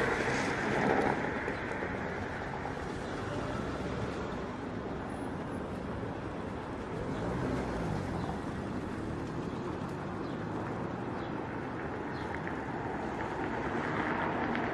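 Traffic noise in a jammed road: bus and truck engines running close by, a steady rumble that grows a little louder near the end.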